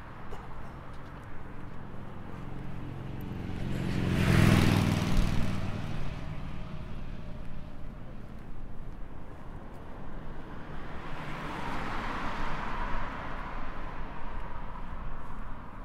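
Road traffic passing: a motor vehicle goes by close about four seconds in, loudest with a low engine note and tyre noise, and another vehicle passes more gently later with a faint steady whine.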